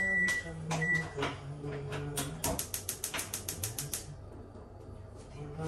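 Two short electronic beeps at the start, then a fast run of sharp, even clicks, about seven a second for some two seconds: a gas stove's spark igniter clicking as a burner is relit.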